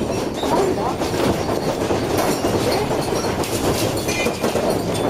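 Earthquake shaking: a steady, loud rumble with dense rattling and clattering.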